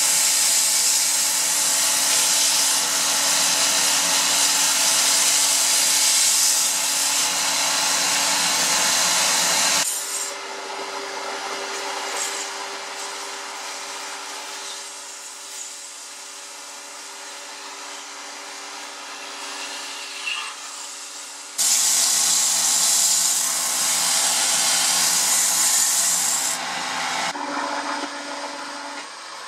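Sandpaper rubbing against a rock maple baseball bat spinning on a hydraulic copy lathe, a loud hiss over the steady hum of the machinery. About ten seconds in the rubbing stops and only a quieter hum with a low steady tone remains. A little past twenty seconds the loud rubbing returns for about five seconds.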